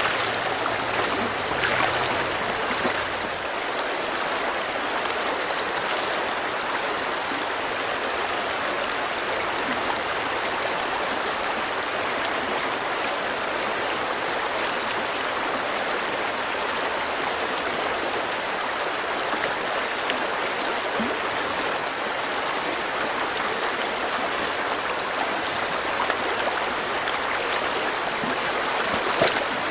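Fast, shallow stream water rushing over a rocky riffle: a steady, even rush of running water.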